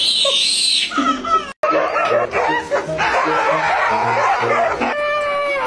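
Laughter, cut by a brief dropout about one and a half seconds in. Near the end a dog starts a long, wavering howl.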